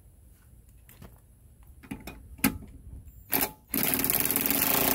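A couple of knocks as a socket is fitted, then, about three and a half seconds in, a Ryobi P235 cordless brushed impact driver starts running loudly and steadily, driving the car jack's screw to lower the car.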